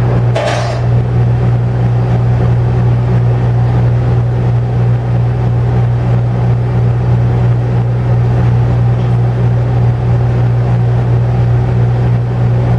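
Air conditioner running with a loud, steady low hum. A short brief sound cuts in about half a second in.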